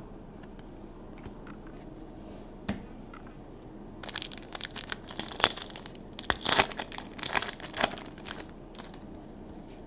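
A foil hockey card pack being torn open and crinkled by hand: a dense run of crackling, rustling tears lasting about four seconds from near the middle, after a light tap a little earlier.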